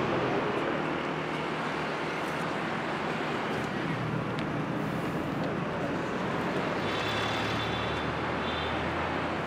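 Steady street traffic noise. A low hum comes in about seven seconds in.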